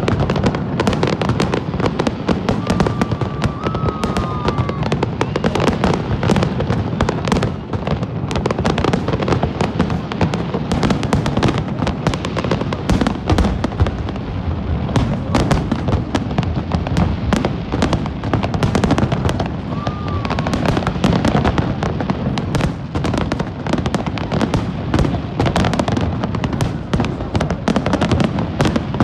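Fireworks display: a continuous dense barrage of shells bursting, rapid overlapping bangs and crackles with no let-up.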